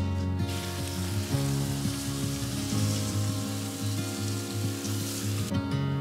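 Soft instrumental background music with a steady hiss over it that cuts off sharply near the end.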